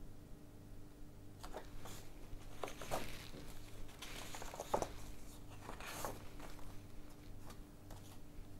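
Pages of old bound magazines turned by hand: a handful of paper rustles and flicks, the loudest a little under five seconds in, over a faint steady hum.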